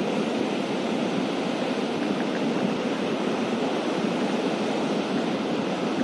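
Surf breaking along a sandy beach: a steady, unbroken wash of waves.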